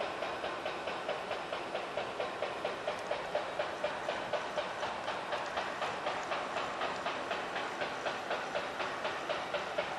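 A steady insect chorus pulsing evenly, about three to four pulses a second, with a light hiss underneath.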